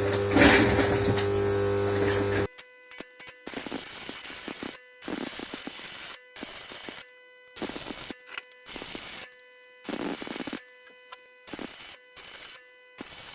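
Arc welding in a run of short bursts, each under a second with brief pauses between: the stitch-by-stitch full welds on steel washers and nuts. A loud steady electric hum runs for the first couple of seconds before the welding starts.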